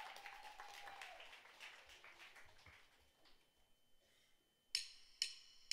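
Scattered audience applause dying away, with a brief high call at the start. Near the end come sharp, ringing metallic ticks about half a second apart: a drummer's count-in just before the band starts the song.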